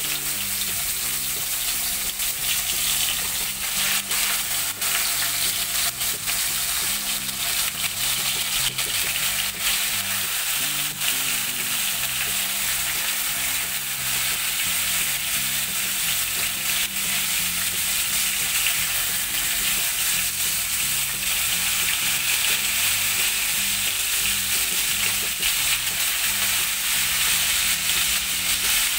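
Koi fish (climbing perch) frying in hot mustard oil in a kadai: a steady, loud sizzle with frequent crackling pops. A wooden spatula moves the fish in the pan now and then.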